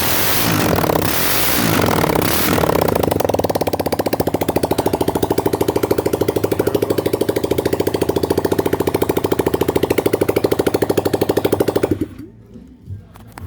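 Freshly rebuilt 200cc motorcycle engine running after its first start. It is revved a few times in the first few seconds, then settles into a steady, rapid, even beat, and cuts off about twelve seconds in.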